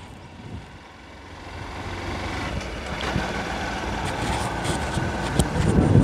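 Motorcycle running while riding along a road, with wind rushing on the microphone; the engine and wind grow louder over the first few seconds and then hold steady.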